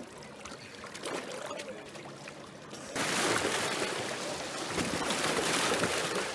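Small waves lapping and trickling over the rocks at the lake's edge, a watery hiss that steps up suddenly and much louder about three seconds in.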